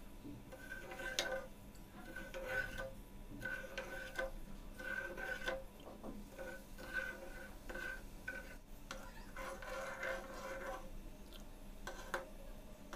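Steel ladle stirring undissolved sugar in water in a nonstick pan, scraping the pan bottom in faint, irregular strokes that squeak slightly, with a few light clicks of metal on the pan.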